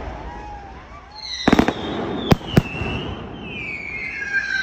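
Aerial fireworks going off: a quick cluster of sharp bangs about a second and a half in, then two more single bangs a moment apart. Whistles glide up and down through the second half.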